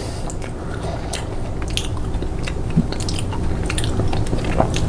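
A person chewing a chocolate-covered roasted cicada with the mouth close to the microphone: irregular crunching and wet mouth clicks as the crunchy insect breaks up.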